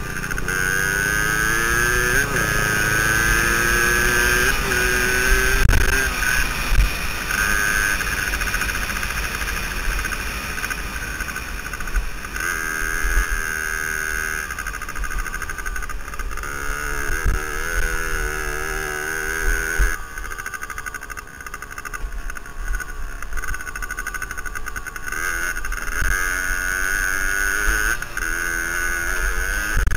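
Suzuki DS80's small two-stroke single-cylinder engine running at speed, its pitch rising and falling again and again as the throttle is worked through the gears. Wind rushes over the helmet-mounted microphone, with occasional low thumps. The engine drops back and goes quieter for a few seconds about two-thirds through.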